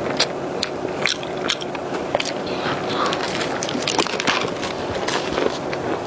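Close-miked mouth chewing a cocoa cream puff filled with bubble-tea pearls: a quick, irregular run of wet squishing clicks and smacks, several a second.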